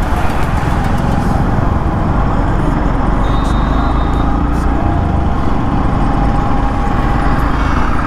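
Motorcycle riding through city traffic, heard from a helmet-mounted microphone: steady wind rush over engine and road noise, with other vehicles around.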